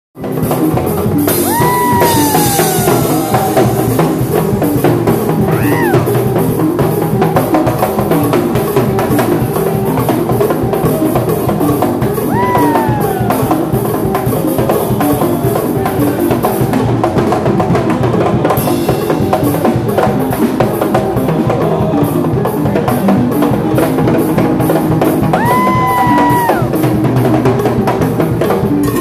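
Live Latin band percussion jamming: timbales and a mounted cowbell struck with sticks over drum kit and congas, a dense driving rhythm. A few short sliding pitched notes sound over the top.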